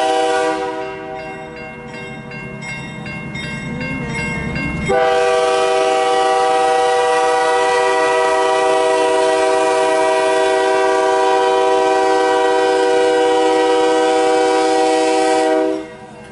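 A CN diesel locomotive's multi-tone air horn, close by. The first blast fades about half a second in, leaving the train's rumble with faint horn tones. About five seconds in the horn sounds again and is held steady for some eleven seconds before cutting off sharply near the end.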